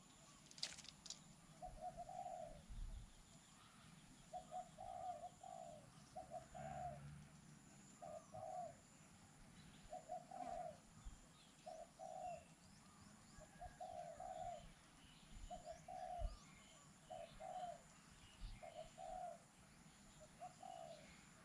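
Dove cooing faintly in short repeated phrases, one every second or two. Other small birds chirp faintly in the background.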